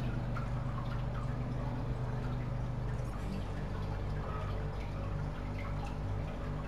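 Chicken pieces and onion sizzling and crackling in oil in a non-stick wok, with small pops and the scrape of a wooden spatula as they are stirred, over a steady low hum.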